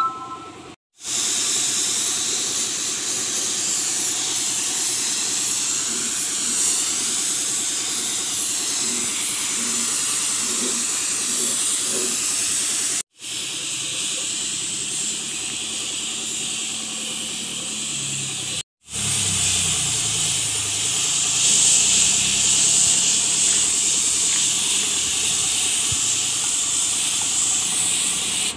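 Gravity-feed compressed-air spray gun hissing steadily as it sprays pink paint, breaking off abruptly twice.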